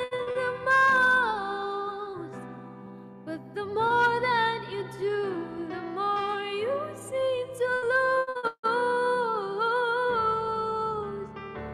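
A young woman sings a ballad solo into a microphone, holding long notes and sliding between them, over a soft instrumental backing track. The sound drops out briefly about eight and a half seconds in.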